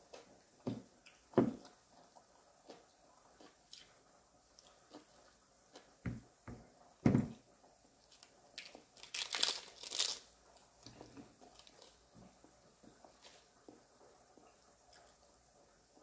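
Close-up eating sounds: crunching and chewing on crisp lettuce with grilled chicken and papaya salad, with a few soft thumps in the first half. A louder crisp crunching burst comes about nine to ten seconds in.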